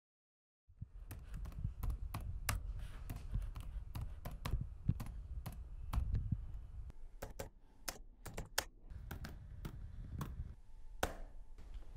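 Typing on a computer keyboard: irregular keystroke clicks starting under a second in, with a short pause about two thirds of the way through, over a low rumble.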